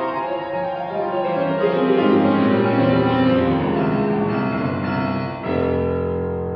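Grand piano playing a dense passage of many quick notes, then about five and a half seconds in a full chord with a deep bass, struck and held ringing as it fades. This is the closing chord of the piece.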